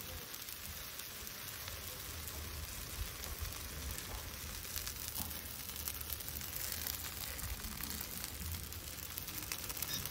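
Hot steel horseshoe held against a horse's trimmed hoof, the hoof horn burning with a steady sizzle and fine crackling as the shoe is hot-fitted.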